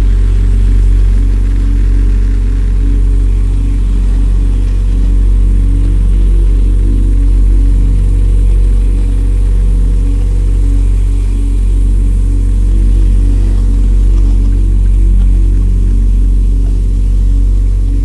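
Music: a dense, steady drone of deep sustained bass and low tones, swelling gently about every two seconds, with almost nothing in the higher range.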